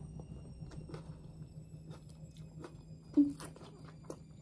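Cherry tomatoes being chewed: faint, scattered wet mouth clicks and smacks, with a short hummed "mm" about three seconds in.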